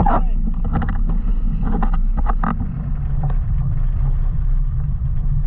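Wind buffeting the microphone as a heavy, steady low rumble, with a few brief sharper noises, likely water spray, on top.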